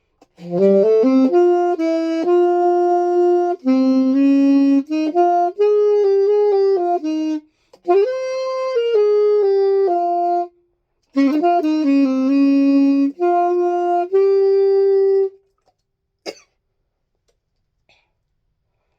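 Solo saxophone with no accompaniment, playing a melody in phrases with short breaks for breath about eight and eleven seconds in. The playing stops about fifteen seconds in, and a brief sharp sound follows a second later.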